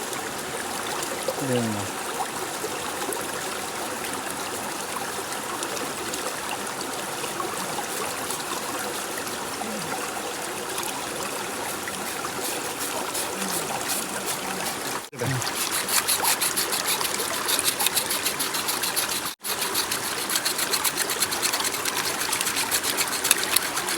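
Water trickling steadily. About 15 s in it cuts off sharply and comes back louder, with rapid scratchy rubbing over the water, and it breaks off briefly again a few seconds later.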